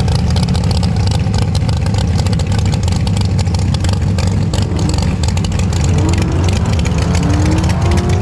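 Loud race-car engine idling with a rough, crackling beat. Near the end a rising engine note climbs in pitch over it.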